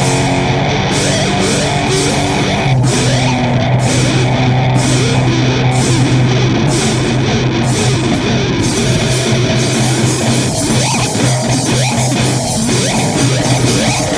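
Loud heavy rock music with distorted electric guitar and drums.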